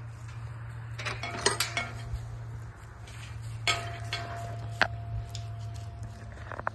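Black metal mesh gate clanking as it is swung and handled: a cluster of metal knocks about a second in, then two sharper clanks around four and five seconds that leave a brief ringing tone.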